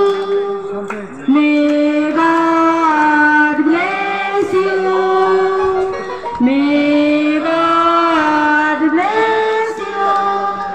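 A group of children and women singing together, a slow melody of long held notes in phrases of a few seconds, with short breaths between them.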